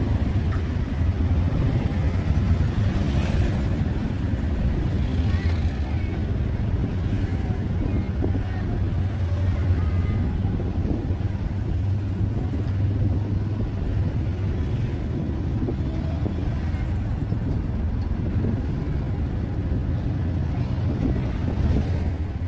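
Steady engine drone and road noise from a small vehicle riding through city street traffic, with a constant low hum and no clear rise or fall in speed.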